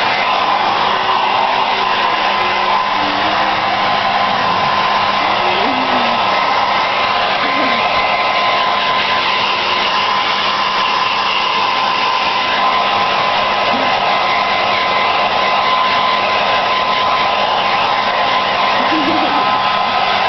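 Handheld hair dryer blowing steadily: an even rush of air with a constant whine running under it.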